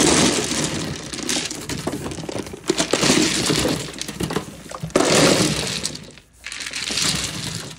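Melamine mahjong tiles tumbling out of a cardboard box and clattering onto the table and against one another, in repeated bursts of loud clatter.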